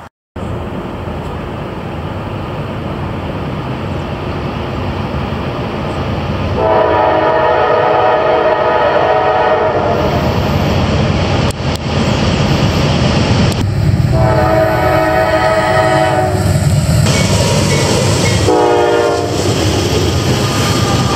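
Norfolk Southern freight train approaching, its diesel rumble growing steadily louder. The lead locomotive's air horn sounds two long chords and then a short blast, a horn salute to the railfans at trackside. Near the end the locomotives rumble past close by.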